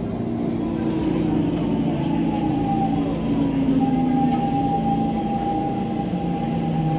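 SMRT C651 train's traction motors and inverters whining as it runs at low speed, several steady tones over the rumble of the running gear, heard from inside the car.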